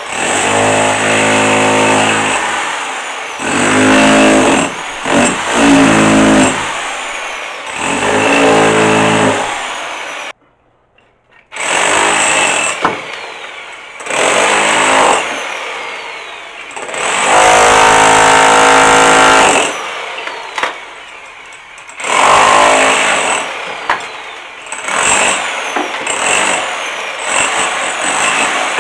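Electric hammer chiselling old plaster and stone off a wall, run in repeated bursts of one to three seconds with short pauses between. It drops out for about a second around ten seconds in.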